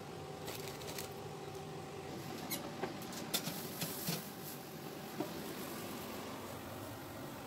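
Glass baking dishes knocking and scraping against a wire oven rack as they are slid into an oven: a few light clicks and knocks in the middle, over a steady hum.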